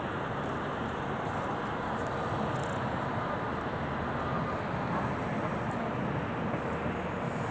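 Steady outdoor ambient noise: the distant, even hum of city traffic far below, with no distinct events.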